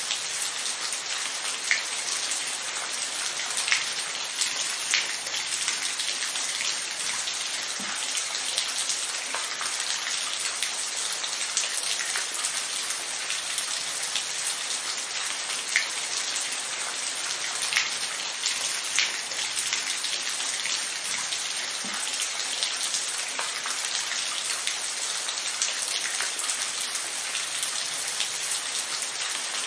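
Steady rain falling, an even hiss with scattered individual drops striking a surface close by.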